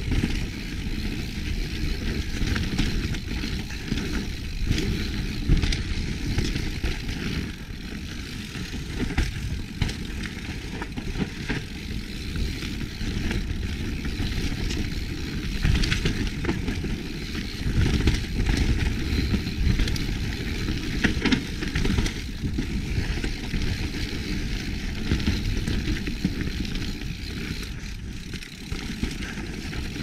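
Kona Process 153 full-suspension mountain bike descending a dirt singletrack: tyres running over dirt and roots, with a steady stream of rattles and knocks as the bike hits bumps.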